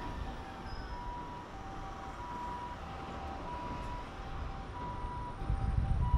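A two-tone hi-lo emergency-vehicle siren, switching between a high and a lower note about every half second, over a steady low rumble that swells near the end.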